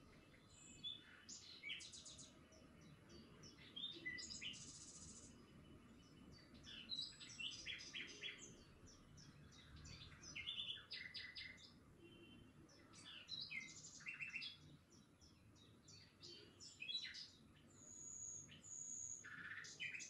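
Faint chirping of small birds: many short, quick calls in clusters, with a few longer high whistled notes near the end.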